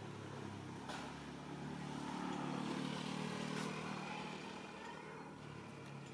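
A motor vehicle's engine passing by, its hum growing louder toward the middle and then fading away. Two sharp clicks come about one second and three and a half seconds in.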